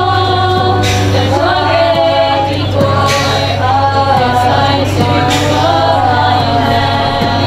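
Choir singing a slow song in held notes, over a steady low hum.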